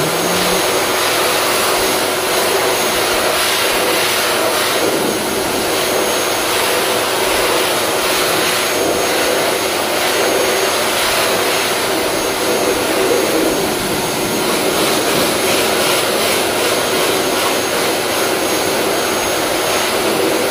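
High-velocity pet grooming dryer (blaster) running steadily, blowing air through its flat nozzle onto a wet dog's coat: a loud, even rush of air with a motor hum beneath it.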